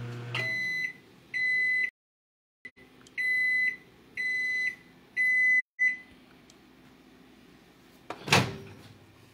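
Microwave oven finishing its cycle: the running hum cuts off about half a second in, then the end-of-cycle beeper sounds a series of beeps at one high pitch, roughly one a second. Near the end comes a single short, loud clunk.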